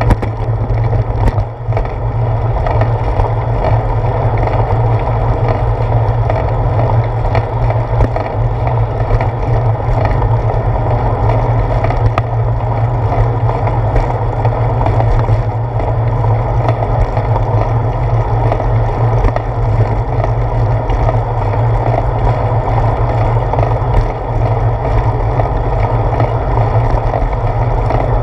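A bicycle rolling along a concrete sidewalk gives a steady, loud rumble, picked up by a GoPro Hero 4 camera mounted on the handlebars. A few sharp clicks come now and then, as the wheels cross the pavement joints.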